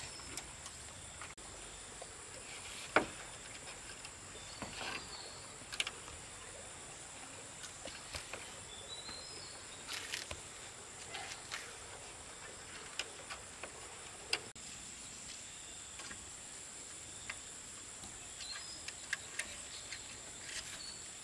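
Steady high-pitched drone of insects, with scattered sharp clicks and knocks at irregular intervals, the loudest about three seconds in, and a few brief bird chirps.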